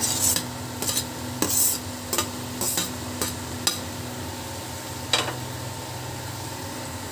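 Diced tomatoes tipped into a metal kadhai of frying onion masala, then a spatula scraping and stirring against the pan. There is a run of short sharp scrapes in the first few seconds and one more about five seconds in, over a light sizzle.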